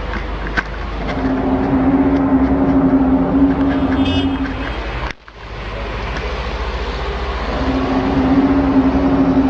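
A low, steady droning tone held for several seconds over a deep rumble. The sound drops out abruptly about five seconds in, and the same drone comes back near the end. This is the mysterious sky noise of the viral 'apocalyptic trumpet' recordings, heard here in the Homel clip.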